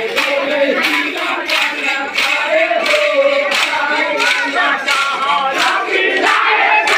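A crowd of men chanting together in a loud group chant, with sharp clacks in a steady beat about one and a half times a second, from bamboo sticks struck together in a Muharram stick dance.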